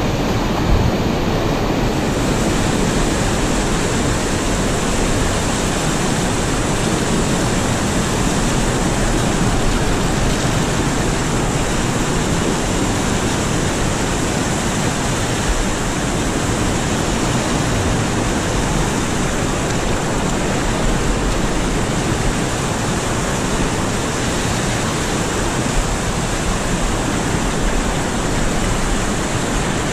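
River rapids: whitewater rushing over and around boulders, a steady loud rush of water close to the microphone.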